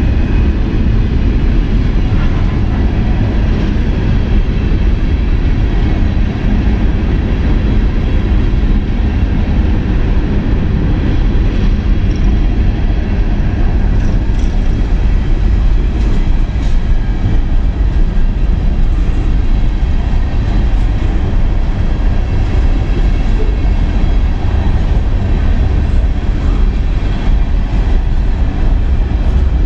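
Empty steel coal cars of a CSX freight train rolling past at close range: a loud, steady rumble of wheels on rail, with faint clicks and thin high squeals over it.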